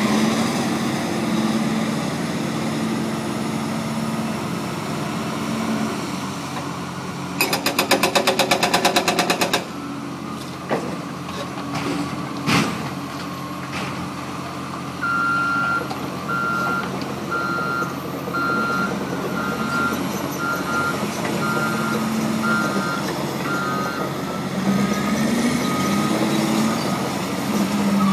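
Heavy demolition machinery running, with diesel engines droning throughout. About a quarter of the way in comes a rapid pounding of about four to five strokes a second for about two seconds, followed by a couple of sharp impacts. In the second half a reversing alarm beeps steadily for about nine seconds.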